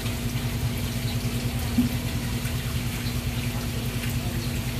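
Water running steadily over a low, continuous hum, with a single soft knock a little under two seconds in.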